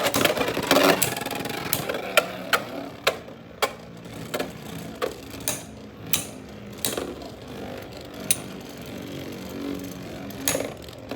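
Two Beyblade X spinning tops, Silver Wolf and Samurai Saber, whirring in a plastic stadium and clashing, with many sharp hits at irregular intervals.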